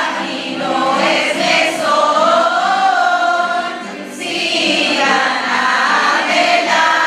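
A group of children singing a song together in chorus, with a short break between phrases about four seconds in.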